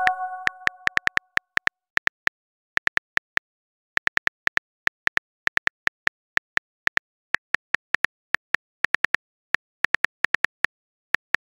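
Smartphone keyboard typing clicks, a few a second at an uneven pace, as a chat message is being typed. At the start a short message chime rings out and fades within about a second.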